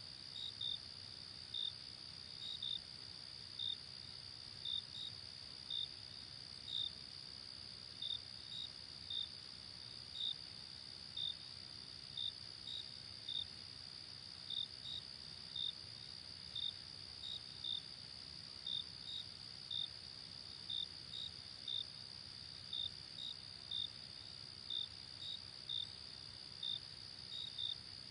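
Night insects chirping: a steady high-pitched trill under short chirps that come about once a second, often in quick pairs.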